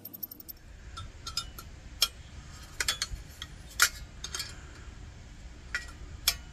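Small metal clicks and clinks from a wrench and pressure-lantern parts being handled, a dozen or so scattered sharp clicks, the loudest about two seconds in and about four seconds in.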